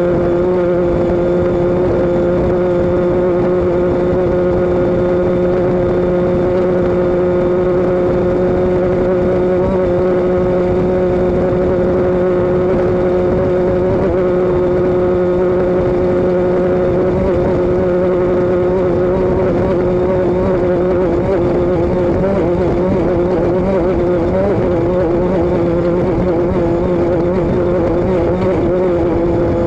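A vehicle's engine running at a steady speed: an unbroken drone with two strong, unchanging tones that waver slightly about three quarters of the way through.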